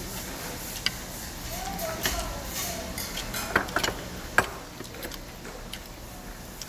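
Metal spoons clinking and scraping against stainless steel rice bowls and dishes, as scattered sharp clinks with a cluster of them about halfway through. A short voice sound comes a couple of seconds in.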